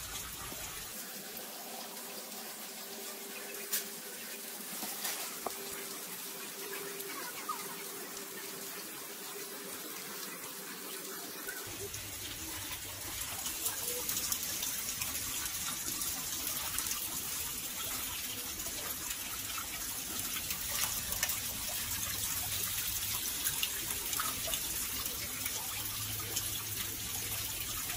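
Steady rush of running water, with a faint steady hum for about the first ten seconds.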